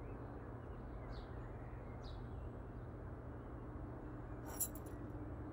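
Quiet room tone with a steady low hum, two faint short high chirps about one and two seconds in, and a brief click near the end.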